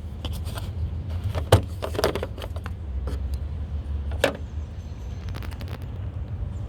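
Plastic clicks and knocks of hands working the covers off the back of a car's headlight housings, with two sharper snaps about a second and a half and four seconds in, over a steady low rumble.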